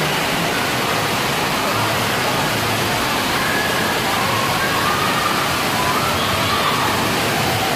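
Steady rush of running and splashing water from an indoor water park's play features, with faint distant voices.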